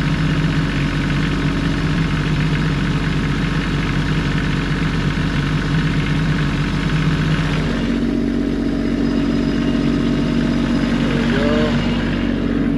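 Engine running steadily, its note changing about eight seconds in.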